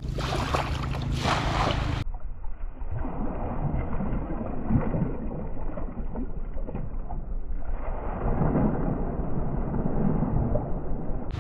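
Water sloshing and splashing around a wader as he gathers a dripping cast net and throws it, with the net landing on the water in a spread of splashes near the end.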